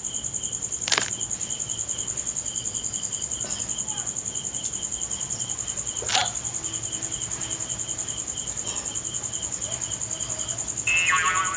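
Crickets chirring steadily in a fast, pulsing, high-pitched trill. Two sharp clicks come about five seconds apart, and a short voice-like sound comes near the end.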